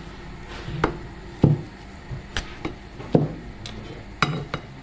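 A spatula knocks and scrapes against a mixing bowl while mashed potato, flour and cheese are stirred together: a string of irregular dull knocks.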